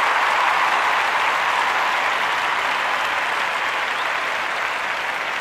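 Audience applause, an even clatter of many hands that slowly dies down.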